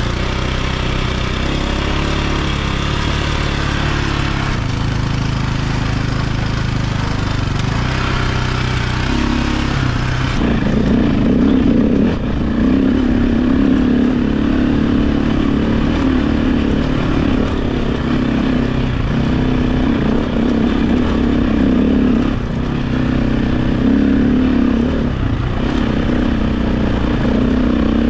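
KTM 520 dirt bike's single-cylinder four-stroke engine running under way. About ten seconds in it revs higher and gets louder, then holds there with a few brief dips.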